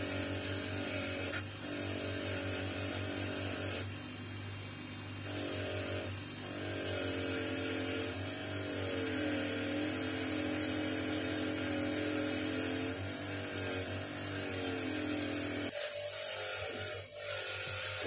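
Bench grinder running with a wire wheel, a rusty toothed pipe-wrench jaw held against it and wire-brushed: a steady motor hum under a loud, hissing scratch of wire on steel. The motor's tone wavers as the part is pressed on and moved.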